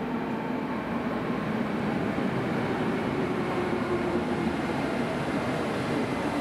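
Czech Railways class 193 Siemens Vectron electric locomotive hauling a passenger train as it approaches. Wheels rumble steadily on the rails under a faint low hum, growing slightly louder as it nears.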